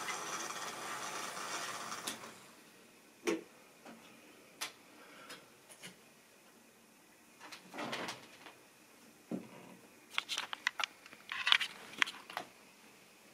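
Model railway train running on the track with a steady whirring hum of motor and wheels, which stops about two seconds in. After that come scattered light clicks and knocks of the model rolling stock being handled, the loudest cluster near the end.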